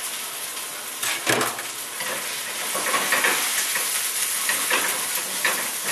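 Sliced mushrooms sizzling as they fry in hot olive oil with onion in a skillet, with a knock and clatter about a second in as they go into the pan from a bowl, then a slotted spatula scraping and stirring them around the pan.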